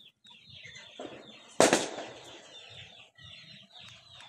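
Chickens clucking, with short high calls repeating throughout, and one sudden loud burst of noise about one and a half seconds in that fades over half a second.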